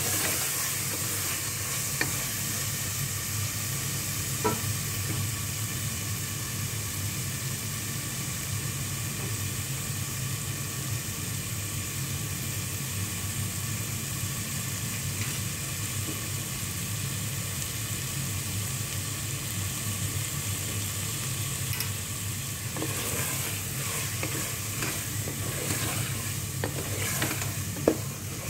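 Minced meat (qeema) sizzling as it fries in an aluminium pot, a steady sizzle over a low hum. A spatula scrapes and clicks against the pot a couple of times early on and more busily over the last few seconds as the stirring picks up again.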